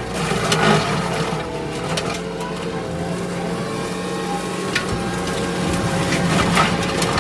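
Kubota SVL65 compact track loader's diesel engine running steadily under load with the brush-cutter attachment whining, and scattered sharp cracks of brush and branches snapping.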